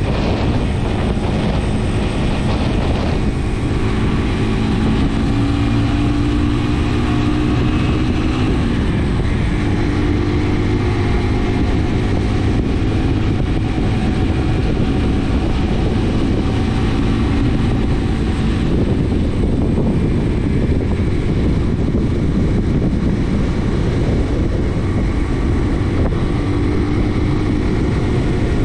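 Brixton motorcycle engine running under way, its note drifting slowly up and down with the throttle, over a steady rush of wind noise.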